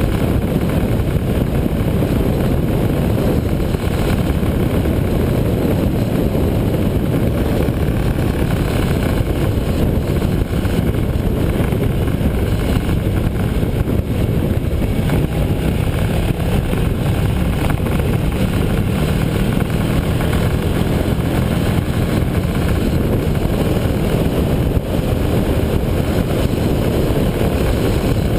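Motorcycle cruising at road speed, heard from a bike-mounted camera: a steady engine drone under heavy wind rush on the microphone.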